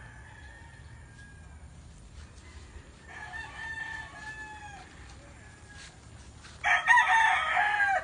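Rooster crowing twice: a fainter crow about three seconds in, then a loud crow near the end that breaks off abruptly.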